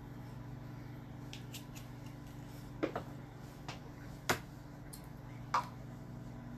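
Five short, sharp clicks and knocks of small plastic containers and lids being handled and set down, spread over the second half, the loudest about four seconds in, over a steady low hum.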